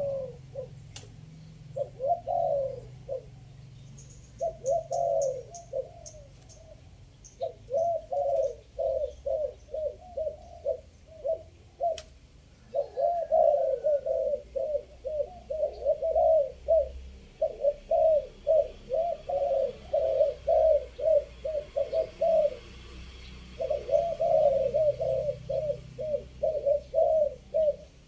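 Spotted doves cooing in repeated three-note phrases, the runs of low rolling coos coming one after another with short pauses. A few faint high chirps from a smaller bird come about four to six seconds in.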